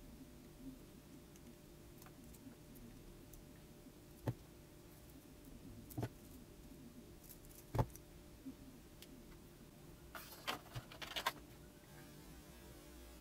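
Light metal clicks and taps of needle-nose pliers and a thin steel pushrod wire being handled: single clicks every couple of seconds, then a quick cluster of clicks about ten seconds in, over a faint steady hum.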